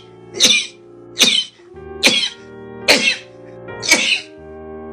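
A person sneezing in a rapid string, five sneezes in quick succession about one a second, over steady background music.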